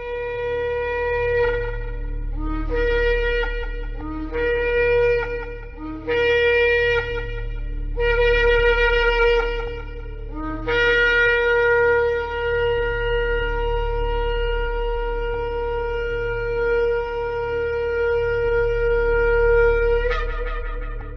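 Shofar (ram's-horn) blasts: a held note, then four shorter notes that each scoop up from a lower pitch, then one long held note of about nine seconds that ends with a brief upward flip.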